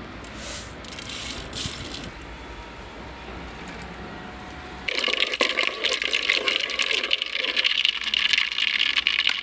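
Mustard seeds clicking and rattling as they are shaken out of a small container. About five seconds in, a loud, dense sizzling and crackling starts suddenly: mustard seeds popping in hot coconut oil.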